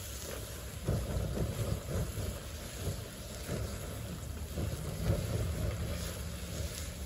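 Wind buffeting the microphone outdoors, a low rumble that comes in uneven gusts.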